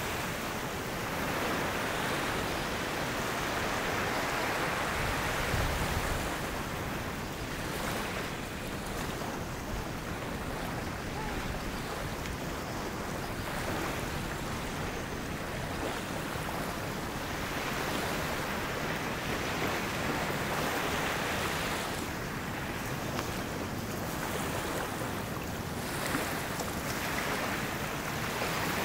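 Small sea waves breaking and washing up a sandy shore, the surf swelling and fading every few seconds, with wind buffeting the microphone.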